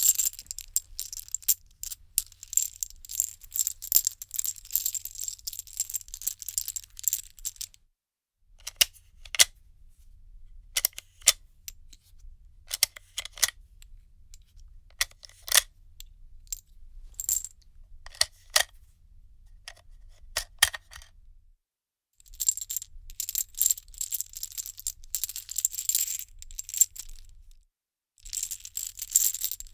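Loose metal cartridges being handled, clinking and rattling against each other. Dense rattling for about eight seconds gives way to a run of separate light clinks, and dense rattling returns near the end.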